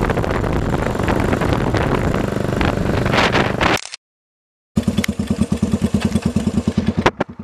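Motorcycle engine running under way, mixed with wind rush, for about four seconds, then cut off. After a short silence, motorcycle engines idle with an even, rapid beat, with a few sharp clicks near the end.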